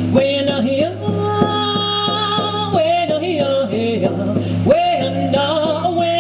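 A woman singing a melodic song with long held and gliding notes, accompanying herself on a hand-held frame drum struck in a steady, even beat.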